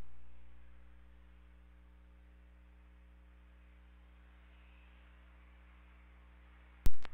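Steady low electrical hum and faint hiss of an air traffic control radio feed between transmissions. The level dies away during the first second or so, and a single sharp click near the end marks the next transmission keying in.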